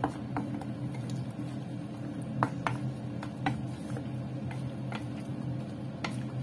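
A wooden spatula stirring chicken liver, gizzards and snap peas in sauce in a stainless steel wok: wet squishing with irregular knocks of the spatula against the pan, over a steady low hum.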